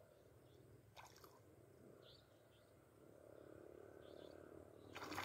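Near silence: faint ambience with soft, short high chirps recurring every second or two, a light click about a second in and a louder click near the end.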